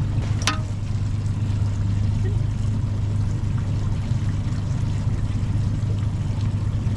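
Boat motor running steadily at low speed, a constant low hum with water noise around the hull, and one brief high chirp about half a second in.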